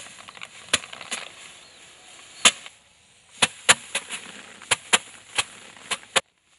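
Rice sheaves beaten by hand against a wooden threshing board to knock the grain loose: about a dozen sharp, irregular thwacks, several coming in quick succession in the middle.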